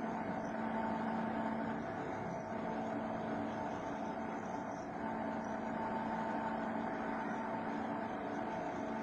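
Homemade CNC machine running, a steady mechanical hum with a constant whine and no strikes or pauses.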